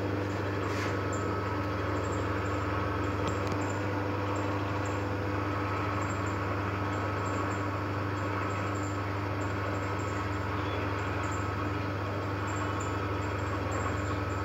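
Brush-tufting machine for zigzag bristle brushes running steadily: a constant motor hum with a faint, regular ticking from the tufting mechanism.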